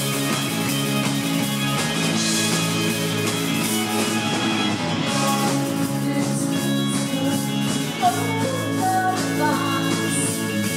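Live rock band playing through a PA, electric guitar to the fore, with a woman's voice singing over it in the second half.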